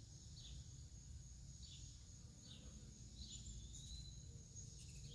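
Near silence: faint outdoor background of a steady high insect drone with soft short chirps repeating about once a second.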